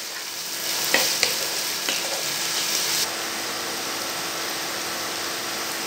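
Sliced onions sizzling in hot mustard oil in a nonstick kadai while they are fried until soft. A spatula scrapes and taps against the pan a few times in the first three seconds, then only the steady sizzle remains.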